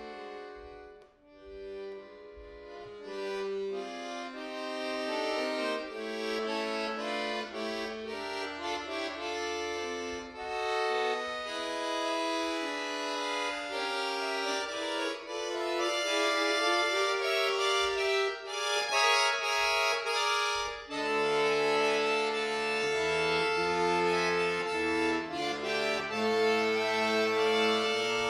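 Solo bayan (Russian chromatic button accordion) playing held, sustained chords and a melody, starting softly after a short break about a second in and growing louder. Deeper bass notes join about three-quarters of the way through.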